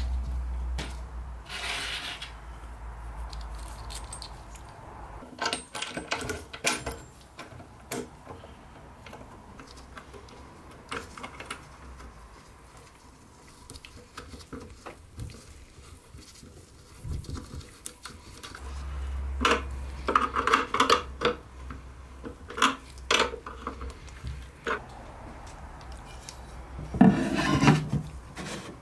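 Scattered light clicks, taps and rubbing of metal and wood as a metal cabinet knob and its screw are handled and a mirror and wooden blocks are set into a wooden cabinet door. There is a louder cluster of knocks about two-thirds of the way through and another near the end, with a low hum in places.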